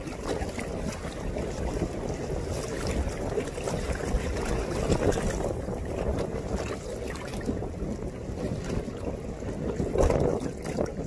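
Wind buffeting the microphone in gusts, over choppy water splashing against a Hobie Adventure Island sailing kayak under way; the gusts are loudest near the end.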